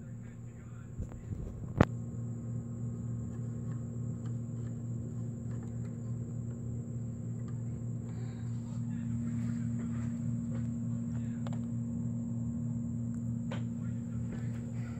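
A steady low electrical hum with a faint high whine above it, and one sharp click about two seconds in.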